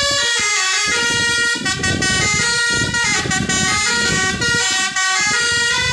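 Bus basuri (telolet) multi-tone air horn played manually, stepping through a melody of held notes in an old tune, over a low rumble.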